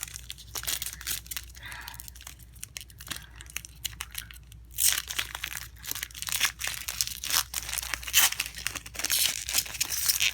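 Wrapper of a Panini Chronicles basketball card pack being torn open and crinkled by hand, a string of quick crackles that get louder and busier about halfway through.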